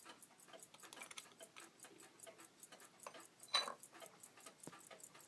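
Mechanical pocket watch ticking faintly and fast, about five ticks a second. A brief louder sound cuts in about three and a half seconds in.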